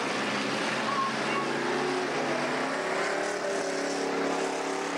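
Speedway sedans racing on a dirt track: several car engines running hard over a steady noise, with a fresh engine note coming in about three seconds in.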